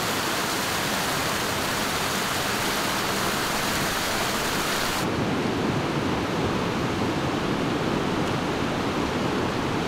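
Steady rushing of flowing water. About halfway through it changes abruptly to a duller, lower rush.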